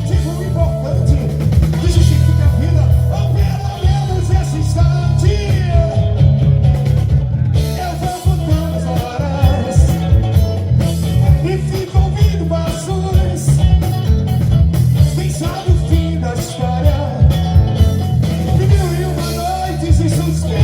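A song with heavy bass, a beat and singing.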